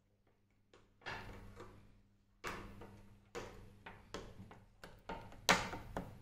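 Metal spoon stirring a milk-and-cream mixture in a ceramic mug, clinking and scraping against the sides in about seven irregular strokes after a near-silent first second.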